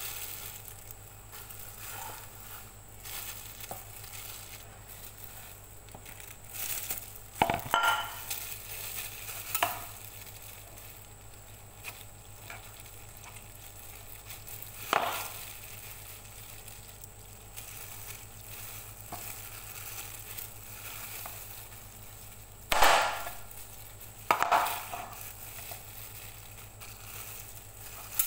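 Clear plastic disposable gloves crinkling and rustling as hands pull boiled chicken thigh meat off the bone. Four sharper crackles or knocks are scattered through it.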